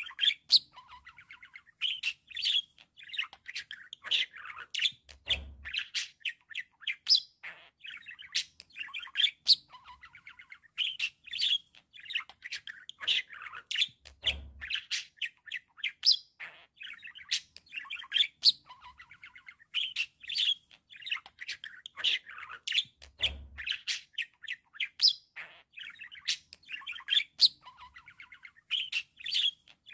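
Budgerigars chirping and warbling in a rapid, unbroken chatter of short high notes, with a faint low thud about every nine seconds.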